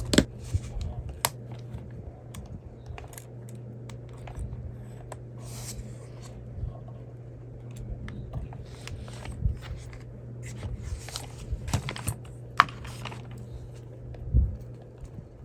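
Irregular clicks, taps and rattles of small plastic and metal RC-car suspension parts being handled and fitted by hand: the sway bar link ball ends going on. A steady low hum runs underneath.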